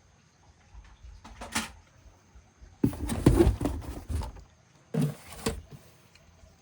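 Handling noise: a few faint clicks, then a loud clattering rustle lasting over a second about three seconds in, and a shorter one about five seconds in.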